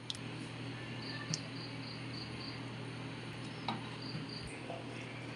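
A cricket chirping in a steady rhythm, a few high chirps a second, over a low steady hum, with a few light clinks from a ladle against the serving bowl.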